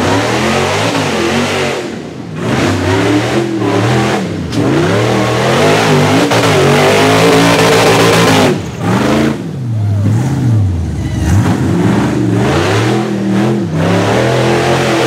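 Supercharged 6.0-litre V8 of a rock-bouncer buggy revving hard again and again under load on a steep climb, its pitch swinging up and down with each burst of throttle. It drops off briefly twice, about two seconds in and again near nine seconds.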